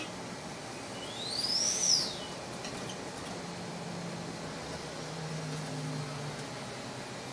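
Cabin noise of a city bus on the move, a steady rumble and hiss. A click at the very start, then about a second in a high whistling tone rises and falls over about a second and a half, and a low engine hum swells in the second half.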